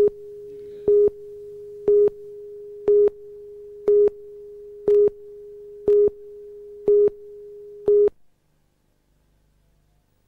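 Studio videotape countdown leader: a steady line-up tone with a louder beep once a second, nine beeps as the clock counts down. The tone cuts off about eight seconds in.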